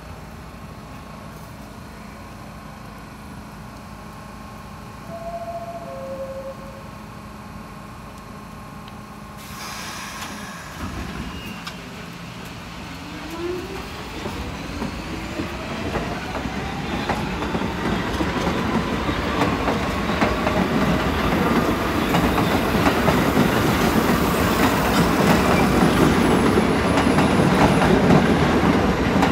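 R46 subway train pulling out of the station: a two-note falling door chime, a hiss starting about ten seconds in, then the traction motors whining upward in pitch as the wheel clatter grows steadily louder with acceleration.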